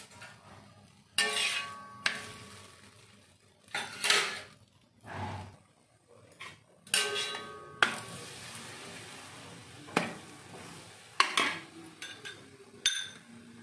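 Metal utensil clanking and scraping against an iron tawa while a paratha cooks on it: about eight sharp clanks at irregular intervals, several ringing briefly.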